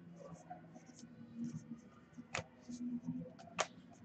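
Faint rustling and sliding of paper-stock trading cards as a stack is flipped through by hand, with two sharper card clicks, about two and a half and three and a half seconds in.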